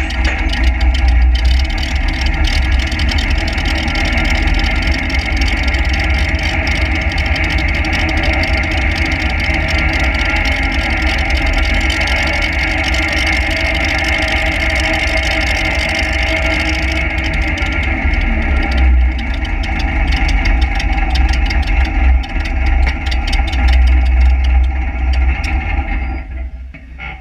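Modified pulling tractor's engine running at a steady speed through its open straight stack, loud, with a deep rumble. It dies away near the end.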